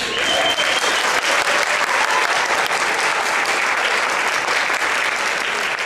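Audience applause, starting abruptly and holding steady throughout.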